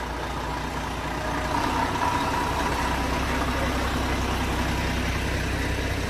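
Volvo 440 hp truck's diesel engine running steadily at low revs, a constant low drone.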